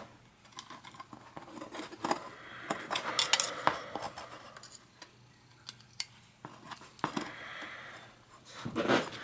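Screwdriver tightening the small screws that hold a toe clip to a bicycle pedal: intermittent light metallic clicks and scraping of the tool against the screw heads and metal parts.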